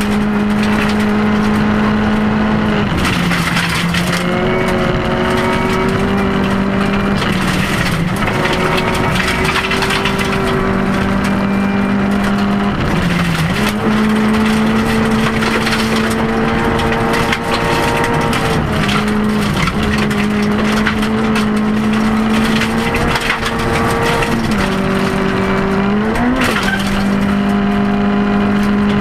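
Rally car engine heard from inside the cabin, held at steady high revs, with brief dips and recoveries about five times as the driver lifts or changes gear, and a rising blip of revs a little before the end. Gravel crackles and rattles against the car's underside throughout.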